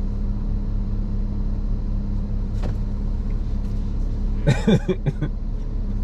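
Steady low rumble and hum of an idling car, heard from inside the cabin, with a short burst of voice about four and a half seconds in.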